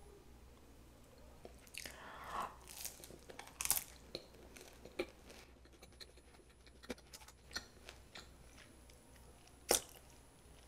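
A person biting and chewing crusty ciabatta: a string of short crunches and mouth clicks, the sharpest crunch near the end.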